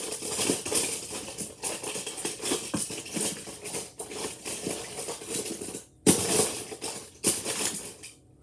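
Die-cast toy cars rattling and clinking together as a hand rummages through a box of them, a dense run of small clicks that stops briefly about six seconds in, then two shorter bursts of clatter.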